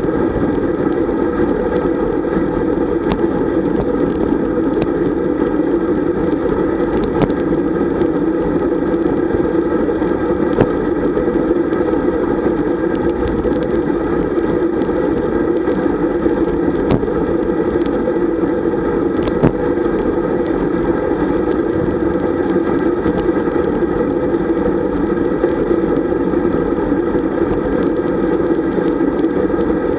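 Steady rush of wind and road noise picked up on a camera riding among road bikes at speed, with a few faint clicks scattered through it.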